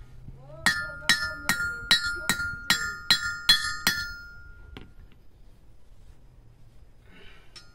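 Hammer striking steel on a small metal jig: about nine sharp, ringing metal blows at a steady two or so a second, then one lighter tap about a second later.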